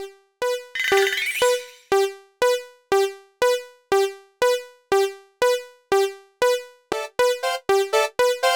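Japanese railroad crossing alarm bell ringing its two alternating tones, about two strikes a second, speeding up to about four a second near the end. A short noisy swish with a rising tone about a second in.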